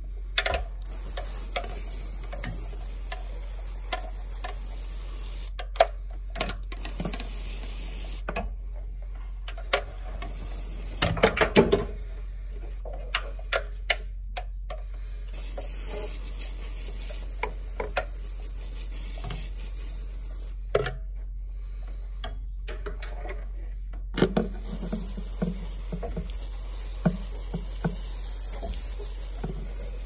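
No-rinse coil cleaner sprayed onto a dirty evaporator coil, hissing in long bursts that stop and start several times, with a cluster of knocks and clatters about eleven seconds in. A low steady hum runs underneath.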